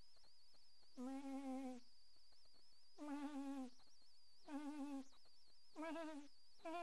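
A person's voice making short hummed tones, four in a row with pauses of about a second between them and a fifth starting at the end, each held under a second with a slight waver in pitch. A faint steady high-pitched whine runs underneath.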